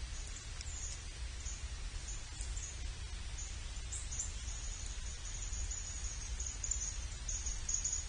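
Insects chirping in a high, rapidly pulsing trill that comes in patches at first and grows denser and steadier from about halfway through, over a steady low rumble.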